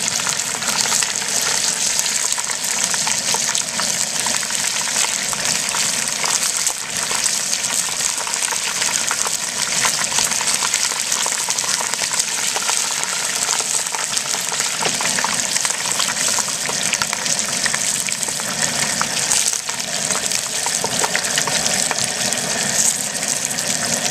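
Whole turkey deep-frying in a large aluminium pot of hot oil: the oil bubbles and sizzles steadily, a dense crackling hiss.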